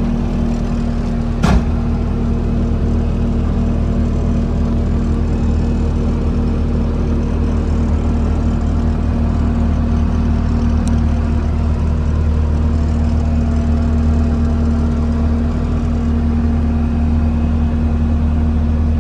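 2016 Bobcat T650 skid steer's 2.4-litre diesel engine running steadily at a constant speed. One sharp knock about a second and a half in.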